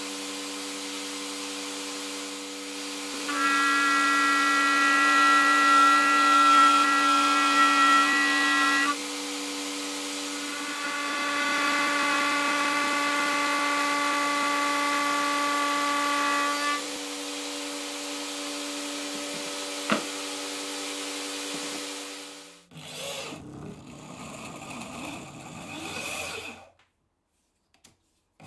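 A table-mounted router runs at a steady speed, and plywood is fed across the bit in two cutting passes of several seconds each, which are louder and higher-pitched while the bit is in the wood. The router stops, followed by a few seconds of a power drill boring into wood.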